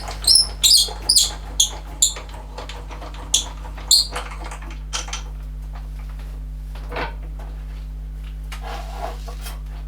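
Short, high metal squeaks and clicks as a lathe part is worked and slid along its guide by hand, bunched in the first four seconds. After that only a steady low hum remains, with a faint knock or two.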